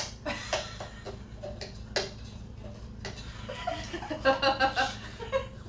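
Metal forks clicking and scraping against a plate while twirling up spaghetti, with the sharpest click at the very start. A short rapid string of pitched pulses follows about four seconds in.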